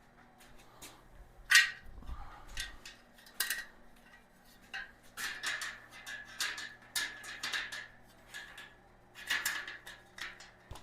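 Steel shelving crossbars and uprights clinking and knocking as they are handled and seated into each other's slots: irregular metallic clicks, some ringing briefly, with a dull thud about two seconds in.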